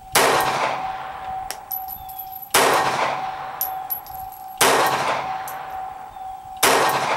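Four shots from a North American Arms Guardian .32 ACP pocket pistol, about two seconds apart, each followed by a long echoing tail.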